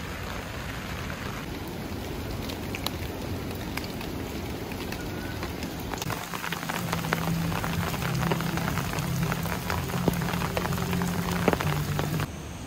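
Steady rain falling, with many individual drops ticking close by. A low steady hum joins about six seconds in, and the rain sound drops away abruptly near the end.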